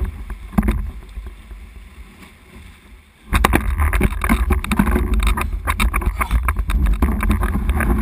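Sea water slopping and splashing around a waterproof action camera held at the surface, with a heavy rumble of water and wind on the microphone and many small splashy knocks. It dies down for a couple of seconds, then comes back suddenly about three seconds in.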